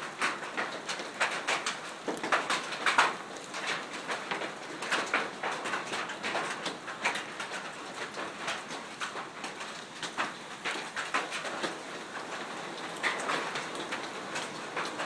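Hail and rain falling on the ground, a dense clatter of many small hailstone impacts over a steady hiss, heaviest in the first few seconds.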